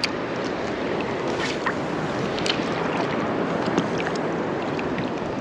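Steady rush of wind and choppy water lapping, with a few short faint ticks.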